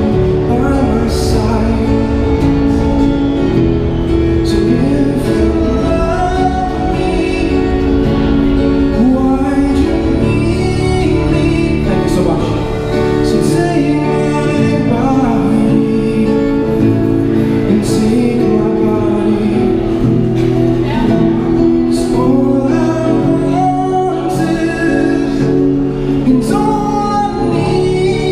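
A man singing into a microphone over his own Yamaha acoustic guitar, both amplified through a Roland Cube Street EX busking amp.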